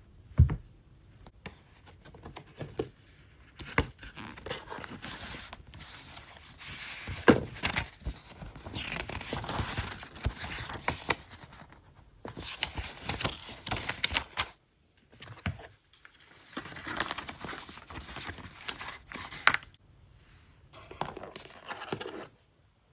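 Product packaging being opened by hand: paper and plastic tearing, crinkling and scraping in bursts with short pauses, punctuated by sharp taps and clicks.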